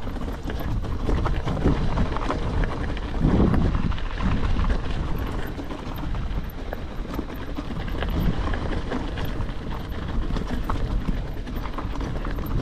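Electric mountain bike rolling down a rocky mountain track: tyres crunching over loose stones and the frame and parts rattling in a dense run of irregular clicks and knocks, over a steady low rumble.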